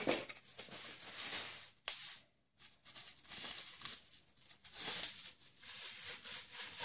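Bubble wrap rustling and crinkling in irregular bursts as it is pulled out of a cardboard box, with a sharp click about two seconds in.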